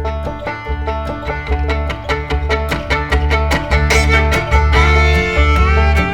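Background bluegrass-style music with quick plucked banjo notes and fiddle over a pulsing bass.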